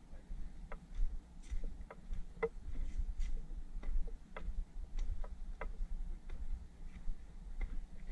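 Footsteps climbing stone stairs: short sharp steps about twice a second, over a low steady rumble.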